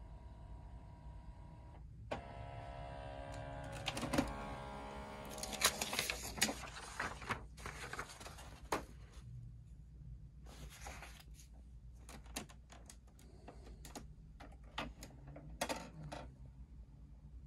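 Canon PIXMA MG6220 all-in-one's scanner running: the scan-head motor whines steadily, changing to a stronger whine about two seconds in. A run of sharp clicks and knocks follows.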